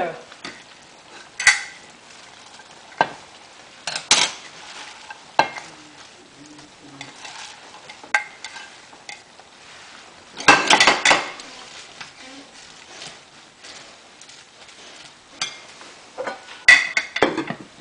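Chopped Swiss chard being pushed off a plate into a pan of simmering curry: scattered clinks and scrapes of plate and pan over a faint sizzle. The loudest clatter comes about ten and a half seconds in, with another near the end.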